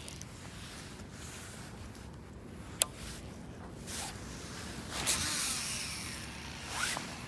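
A sharp click, then a cast on a baitcasting reel: a whoosh as the rod swings and the spool whirs with line paying out, its pitch falling as the spool slows.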